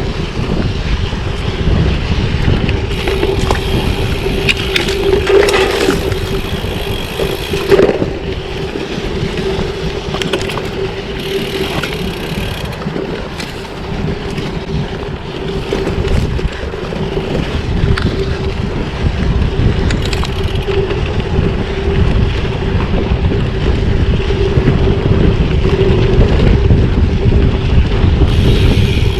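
Riding a bicycle: wind buffeting the microphone over a low tyre rumble, with a steady hum underneath. A couple of sharp knocks come from bumps, about five and eight seconds in.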